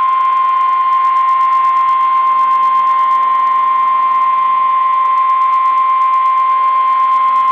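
NOAA Weather Radio 1050 Hz warning alarm tone: one loud, steady, unbroken tone. It is the attention signal that precedes a special marine warning broadcast.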